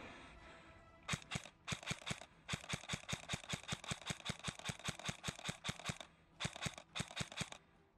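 An airsoft gun firing a long string of rapid shots, about six a second, as sharp pops. A short pause comes near the end, then a second quick burst.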